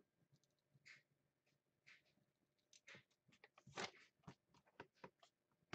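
Near silence with a few faint, irregular clicks and rustles from handling at a desk; the loudest is about four seconds in.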